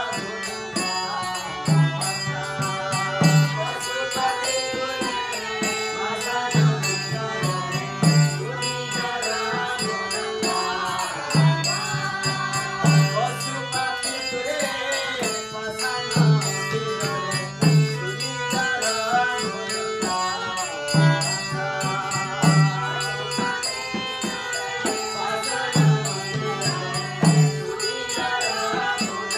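Devotional bhajan: voices chanting a mantra over a hand drum, whose deep bass strokes recur every second or two, and small hand cymbals ticking in time.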